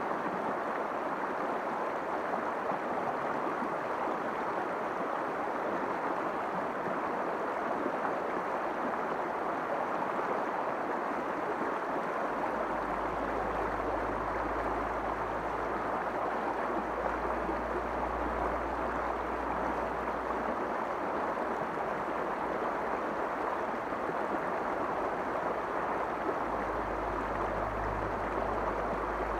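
Shallow river running fast over rocks in a riffle: steady rushing, gurgling water. A low rumble joins in about twelve seconds in, drops away, and comes back near the end.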